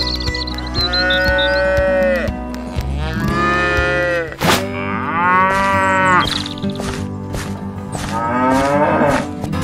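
Cattle mooing: four long moos in a row, over steady background music, with a sharp click about halfway through.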